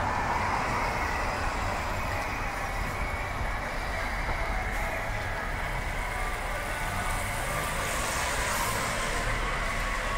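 Steady outdoor city background noise: a continuous low rumble and hubbub with no single event standing out.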